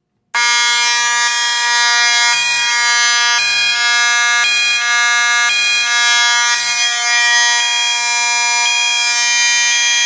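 Fire alarm horn starting suddenly and sounding continuously as one loud, steady, buzzy tone, with a second tone pulsing about once a second. It is the second-alarm signal of a Kidde Gemini releasing panel: both cross-zoned detection zones are now tripped and the countdown to agent release has begun.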